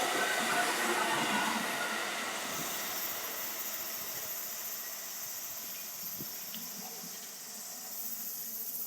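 Kintetsu limited express train of 22000 and 12200 series cars moving away, its rolling noise fading. Cicadas sing in a steady, very high drone that stands out from about two and a half seconds in.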